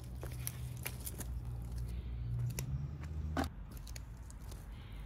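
Weeds being pulled by hand from soft, rain-soaked soil: scattered crunching and tearing as roots come free, with one sharper snap about three and a half seconds in.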